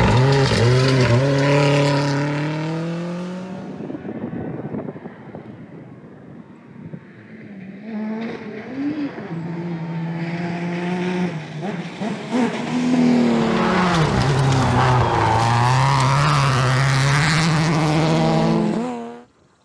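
Rally car engine at full throttle, its pitch climbing and dropping through gear changes, with a quieter stretch partway through before it comes back loud. It cuts off abruptly near the end.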